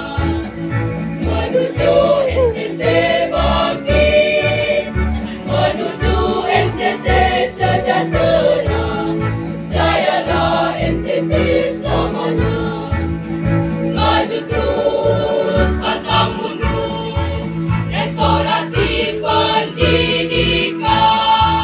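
A high-school choir singing together, many voices in a sustained melody. Under it runs an accompaniment with a steady, even low beat.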